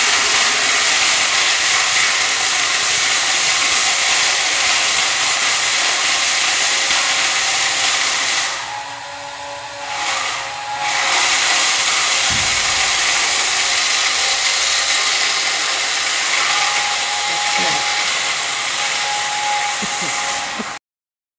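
Three small stainless-steel electric masala grinders running together, grinding dried red chilli and turmeric: a loud, steady high-pitched whirring rush of motors and blades. It briefly dips about halfway and stops abruptly near the end.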